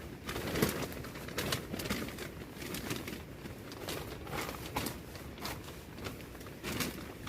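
Irregular light clicks and taps, with a dove's low cooing calls behind them.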